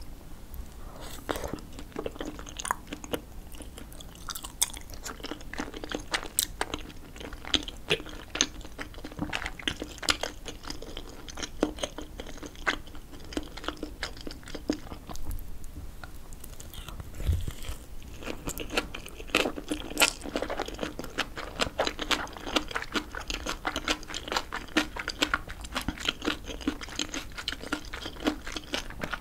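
Close-miked chewing of spicy tteokbokki rice cakes: a steady, irregular run of small mouth clicks and smacks.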